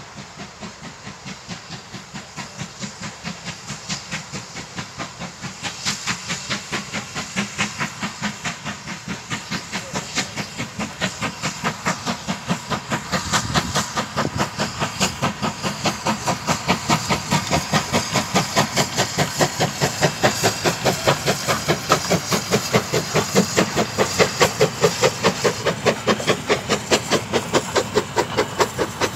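GWR small prairie tank locomotive 5553 working hard with a china clay train: a steady rhythm of steam exhaust beats over hissing steam, growing louder as the train draws near and passes.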